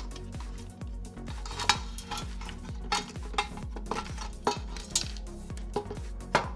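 Several sharp clicks and metallic clinks as a computer power supply's circuit board and sheet-metal case are handled and pulled apart. Background music with a steady beat plays underneath.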